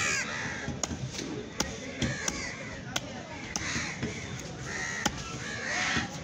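Sharp chops of a large cleaver cutting through a snakehead fish into a wooden chopping block, roughly one a second. Repeated harsh calls sound in the background between the chops.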